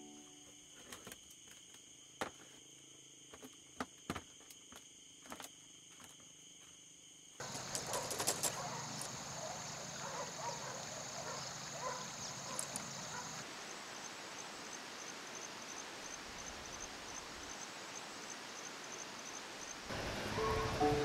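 Countryside insect ambience: steady high-pitched trilling with a few faint clicks, then, after a cut, a louder outdoor hiss with scattered bird chirps and a high insect call pulsing about two to three times a second. Near the end a louder, fuller rush comes in.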